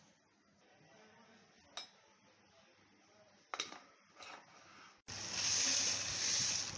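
A few light clinks of a lid against a glass jar as it is closed. Then, about five seconds in, a loud steady rustling hiss as crisp fried onions are poured into a glass jar.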